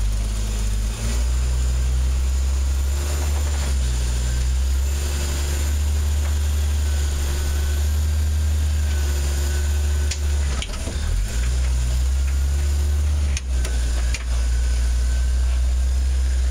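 Jeep Wrangler YJ's engine running low and steady as it crawls over boulders, a deep rumble with a faint high whine over it.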